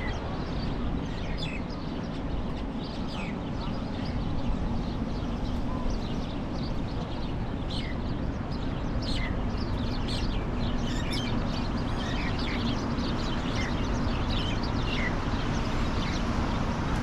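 A flock of birds calling: many short, high calls, often falling in pitch, repeating throughout over a steady outdoor noise.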